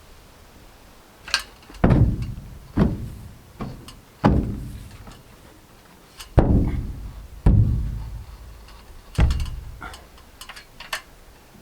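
About eight hard knocks on the van's sheet-metal body at irregular spacing, each followed by a low boom that dies away over about half a second.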